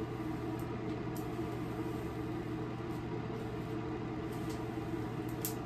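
A steady low mechanical hum, with a few faint swishes of a hairbrush being pulled through dry hair.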